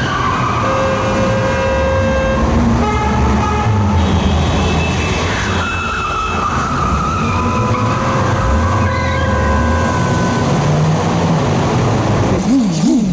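Car engine running hard through a tunnel while oncoming cars sound their horns in long blasts, overlapping, one falling in pitch as it sweeps past.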